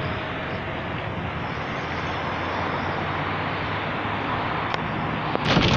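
Steady driving noise of a car: a low engine hum under rushing road and wind noise.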